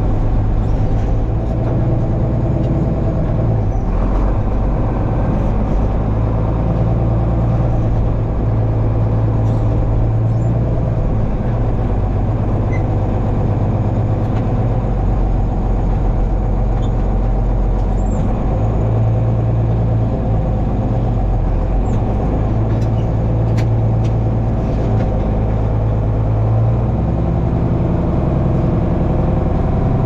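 Heavy farm-vehicle diesel engine running steadily under way. Its note changes near the end.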